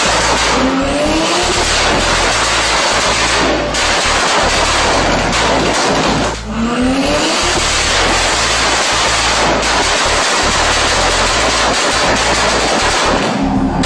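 Loud exhaust of a tuned car accelerating hard. Its pitch breaks and climbs again about a second in and around six and a half seconds in.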